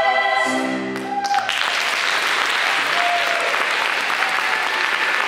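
A chorus of voices holds the song's final chord, which cuts off about a second in; audience applause then starts and keeps going steadily.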